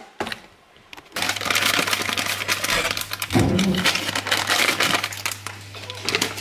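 Foil packet of cake mix crinkling and rustling as it is handled over a stainless steel mixing bowl, starting about a second in, with a steady low hum underneath.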